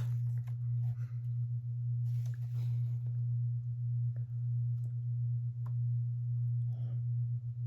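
A steady low hum, the loudest sound, with faint rustling and a few light clicks of old paper items being handled.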